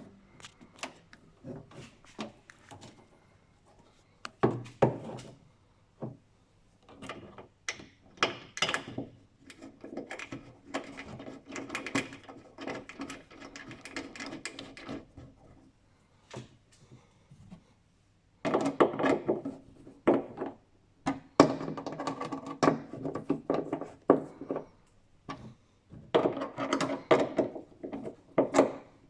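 Hand tools and car parts being handled: a run of sharp clicks, knocks and rattles, bunched into several busy stretches with short quiet gaps between.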